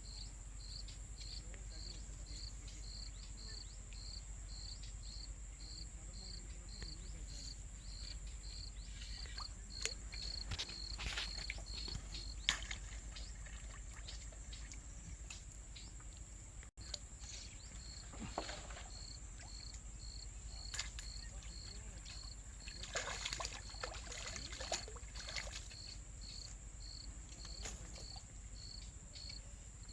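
Insects chirping steadily outdoors: a high pulsed chirp repeating about two and a half times a second over a continuous high-pitched insect drone, with a few short noisy bursts around the middle.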